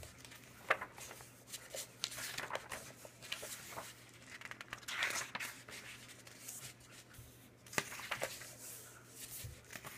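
Glossy pages of an oversized hardcover comic omnibus being turned and handled: soft paper rustling with a few sharp page snaps, the clearest almost a second in and another near the eight-second mark.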